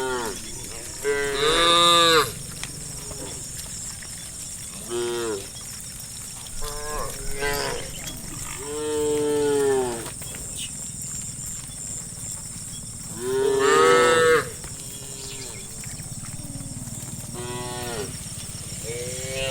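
Cows mooing, about eight calls one after another, some short and some long and drawn out, rising and falling in pitch; the loudest come about two seconds in and again around fourteen seconds. A faint steady high tone runs underneath.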